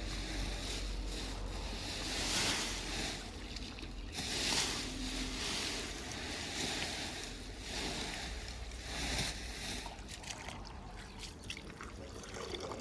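Wind gusting across the microphone: a rushing noise over a low rumble that swells and eases several times.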